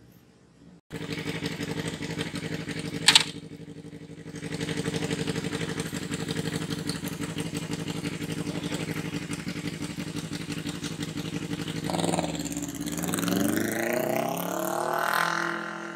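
Yamaha R25's 249 cc parallel-twin engine idling steadily, with one sharp crack about three seconds in. From about twelve seconds in it revs up and pulls away, its pitch rising in repeated sweeps.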